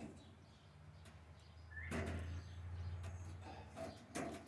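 Faint metal clicks and scraping of cage-clip pliers crimping a ring clip around the door wire and welded wire mesh, one about two seconds in and another just after four seconds, over a low steady hum.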